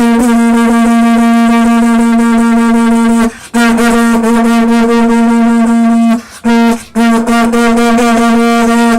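A horn blown by mouth in long, loud, steady blasts on one pitch, with short breaks for breath between them, four blasts in all. This is the Guna storm signal, blown to turn an approaching storm away.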